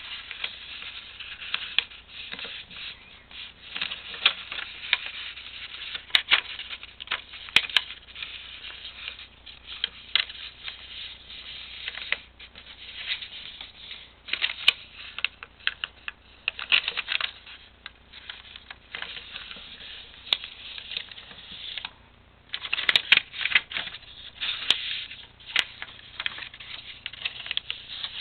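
A sheet of paper being folded into a paper airplane: irregular rustling and crinkling, with sharp little crackles as fingers press and run along the creases. The handling stops briefly about four-fifths of the way through, then resumes.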